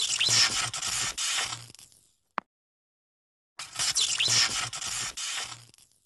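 Animated-logo sound effect: a noisy swish of about two seconds, played twice with a short gap between, each followed by a single sharp click.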